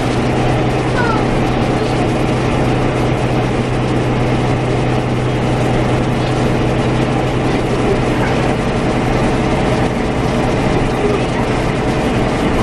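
Irisbus Crossway 12 LE low-entry bus heard from inside while driving: a steady low engine hum with road and running noise.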